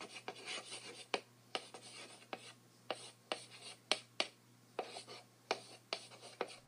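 Chalk writing on a blackboard: a string of short, irregular taps and scratches, faint, over a steady low hum.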